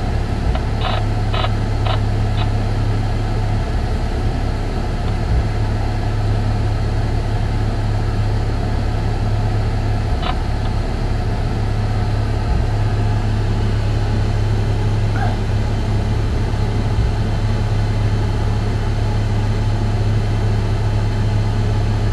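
A steady low engine hum, with a few light clicks near the start and one about ten seconds in.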